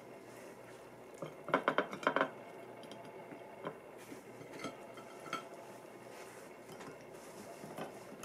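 Tableware clinking as fried tofu slices are set out on a ceramic plate and into a glass bowl: a quick run of ringing clinks about one and a half seconds in, then a few scattered light taps.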